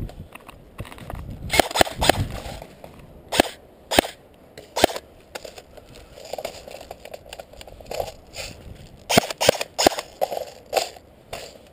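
Airsoft guns firing: about a dozen sharp, single snapping shots at irregular intervals, in three clusters near the start, about four seconds in and near the end, with rustling through undergrowth in between.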